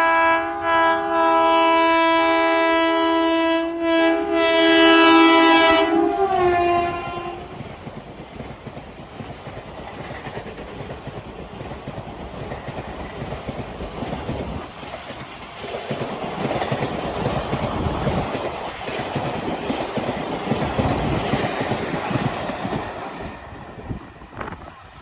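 Indian Railways train passing at speed: a long, loud horn with several tones sounding together, briefly broken a few times, sliding down in pitch as the train goes by about six seconds in. Then the rumble and rhythmic clatter of its wheels over the rail joints as the coaches pass, fading away near the end.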